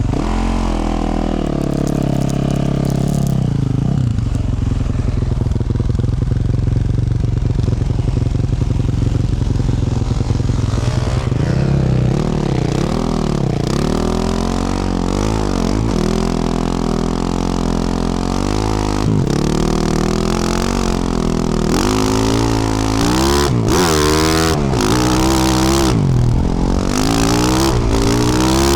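2024 Yamaha YZ450F's single-cylinder four-stroke engine through a Yoshimura RS-12 exhaust, ridden off-road. The revs drop over the first few seconds and hold low and fairly steady, then rise and fall again and again on the throttle, quicker and harder near the end.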